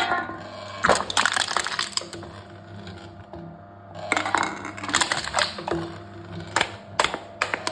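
Aluminium cans being crushed in a wooden crushing machine: a sharp knock, then two bouts of crumpling, crackling metal, about a second in and about four seconds in, and a few sharp clicks near the end.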